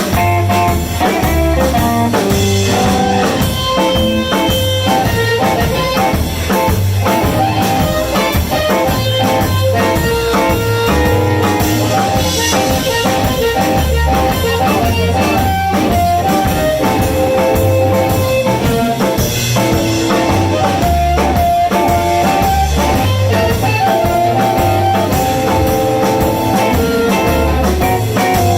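Live blues band playing an instrumental passage: electric guitar lines over bass and drum kit keeping a steady rhythm.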